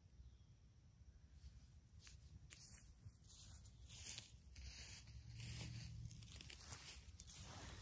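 Tall grass and weeds rustling and crackling in a run of short swishes, as something brushes through them out of view. It starts faintly about a second and a half in, then grows denser and louder.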